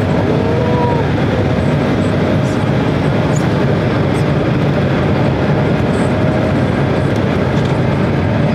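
Steady, loud rumble of noise inside a passenger airliner's cabin.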